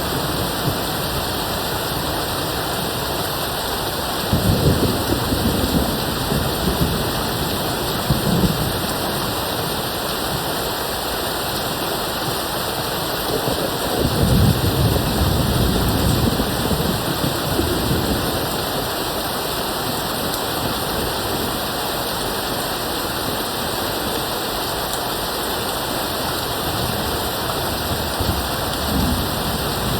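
Steady rain with distant thunder rumbling low underneath. It swells about four seconds in and again near eight seconds, rolls longest from about thirteen to eighteen seconds, and briefly rumbles again near the end.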